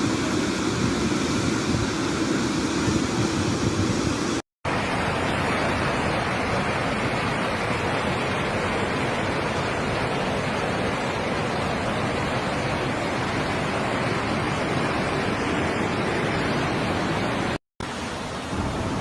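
Flash-flood water rushing by as a steady, dense wash of noise, with two brief dropouts, about four and a half seconds in and near the end.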